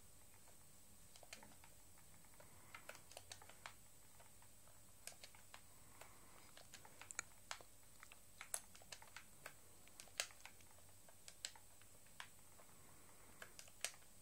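Faint, irregular clicks of slow typing on a tablet's touchscreen keyboard, one key at a time with uneven gaps between taps.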